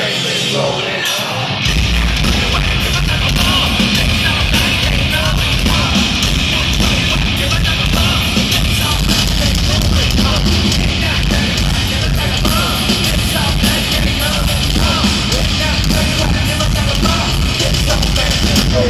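Heavy metal band playing live at full volume, heard from among the arena audience. About two seconds in, the full band comes in with a heavy low end and stays loud and dense.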